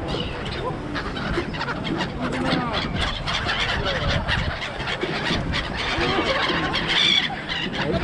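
A flock of seagulls calling over one another: many overlapping squawks, dense throughout, with people chattering underneath.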